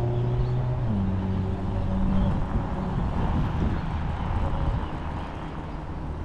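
Wind rushing over the microphone and road rumble from riding an electric scooter. A steady low hum with overtones jumps up in pitch about a second in and dies away after about two seconds.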